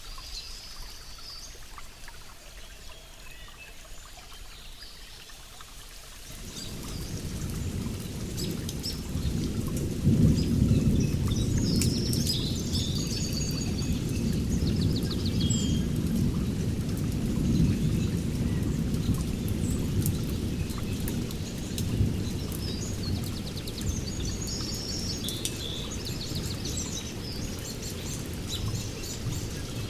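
Rainforest birds chirping and calling, with a long low rumble of thunder that rolls in about six seconds in, peaks a few seconds later and keeps rumbling.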